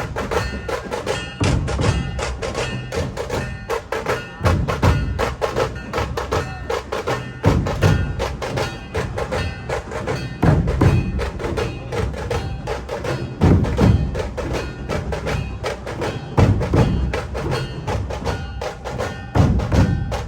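Background music with a fast, steady percussion beat of woodblock-like clicks over held tones, and a heavy low drum hit about every three seconds.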